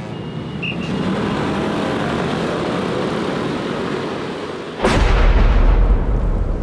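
A steady hiss, then about five seconds in a sudden sharp thunderclap followed by a loud deep rumble.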